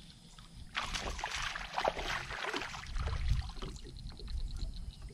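Water splashing and churning as a hooked bass is reeled to the side of a bass boat and swung up out of the water, in irregular bursts starting about a second in.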